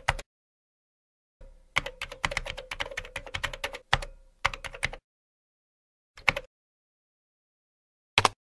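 Computer keyboard typing: a few keystrokes at the start, then a fast run of clicking keys for about three and a half seconds, a brief pair of keystrokes, and a single key press near the end.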